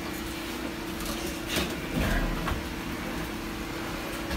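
Steady hum of a kitchen appliance, with a few faint knocks and rustles around the middle as oven-mitted hands handle glass baking dishes on the stove top.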